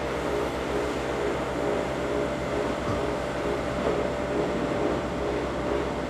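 A motor running steadily with a low, even pulse and a constant hum. It cuts off abruptly at the very end.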